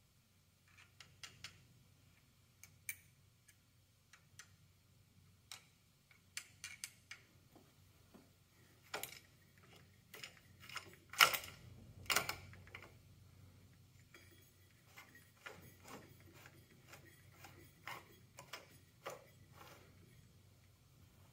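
Light metal clicks and taps from a partly dismantled GY6 150cc scooter engine being handled: a screwdriver touching its parts and the crankshaft turned by hand. Two louder knocks come a little past halfway.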